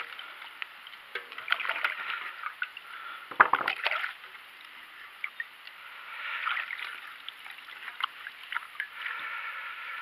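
Oil-centrifuge parts being washed by hand in a metal bucket of liquid: uneven splashing and sloshing, with scattered clicks and a louder clatter about three and a half seconds in.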